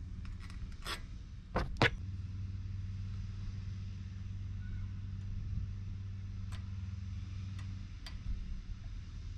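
A few sharp metallic clicks of a hand tool and bolts on a front locking hub's cover, with a few lighter ticks later. Under them, from about two seconds in, there is a steady low mechanical hum of constant pitch.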